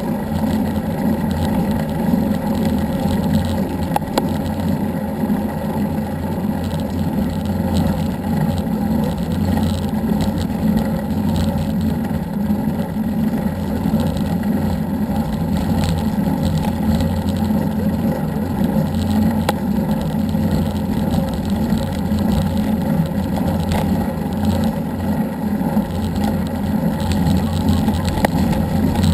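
A vehicle travelling at a steady speed: an even engine drone with road and wind noise that hardly changes throughout.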